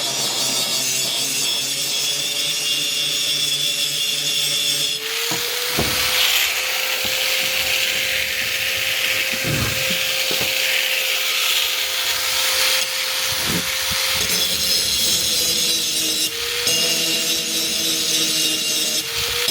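Power grinder sharpening an axe. The motor runs steadily, and about five seconds in the blade is pressed to the wheel: a harsh grinding hiss that lasts about eleven seconds, with the motor tone dipping under the load at contact.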